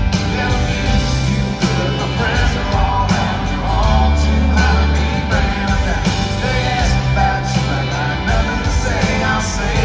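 Live country band playing a full song, with electric and acoustic guitars, bass and drums under a lead vocal, heard through arena reverberation from the crowd.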